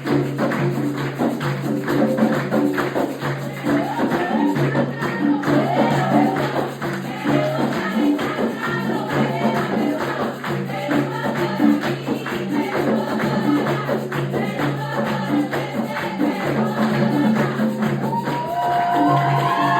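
Upbeat song playing, with a steady beat, bright percussion and a singing voice coming in about four seconds in.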